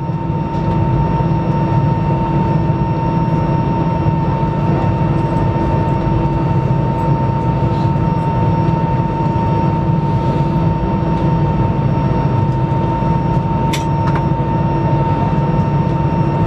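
Airbus A320 cabin noise while taxiing: jet engines at idle, a steady rumble with a steady whine, heard from inside the cabin. It grows louder about a second in, and there is a brief click near the end.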